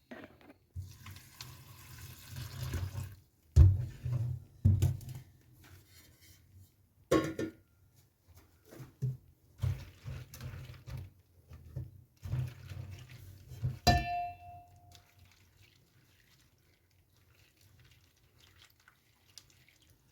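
Kitchen work sounds: a tap runs briefly, then dishes and utensils knock and clatter, with one ringing clink of metal or glass about two-thirds of the way through. The last few seconds are nearly quiet.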